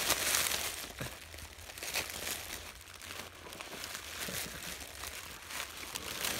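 Gift wrapping paper crinkling and rustling in uneven bursts as a present is unwrapped, loudest at the start.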